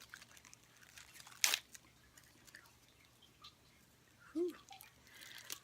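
Faint handling of small packaging, with light rustles and clicks and one sharp click about a second and a half in, followed by a short hum near the end.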